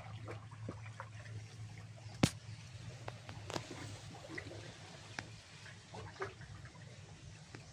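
Floodwater splashing and dripping as a small boat is pushed along with a wooden pole, with scattered small clicks and one sharp knock about two seconds in. A steady low hum runs underneath.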